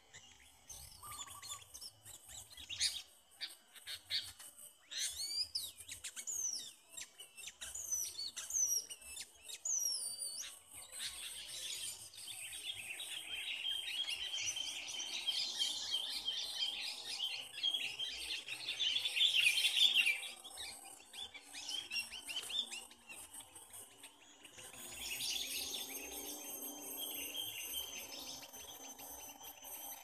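Small birds chirping and calling: short rising and falling whistled notes at first, then a dense run of chattering calls, with a steady high insect trill coming in near the end.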